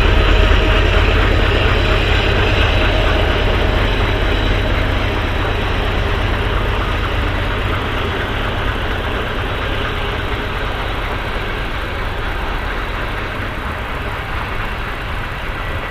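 A steady, loud, low engine rumble with a faint hum on top, slowly easing in level.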